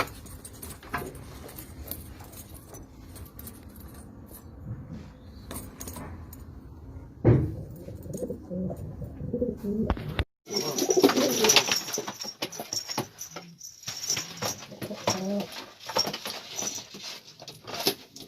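Domestic pigeons cooing in low, wavering calls, with a knock about seven seconds in and scattered clicks and rustles. The sound drops out for a moment about ten seconds in.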